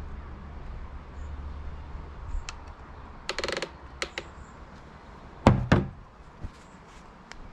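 Clicks, a short metallic rattle and knocks from tools and bicycle parts being handled while a road bike's headset is put back together. Two loud knocks come a little over halfway through.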